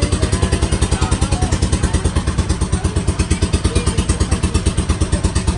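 Inboard engine of a wooden river passenger boat running steadily under way, a loud, fast, even chugging of about nine beats a second.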